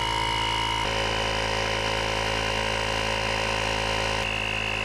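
The built-in electric air compressor of a JF.EGWO 2000A jump starter pack running steadily, pumping air through its hose into a lawnmower tire, set to stop at 12 psi. Its tone shifts slightly about a second in and again near the end.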